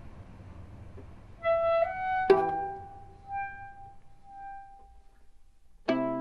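Sparse instrumental film score: a few held woodwind notes over plucked strings, with a sharp plucked chord near the end that rings on.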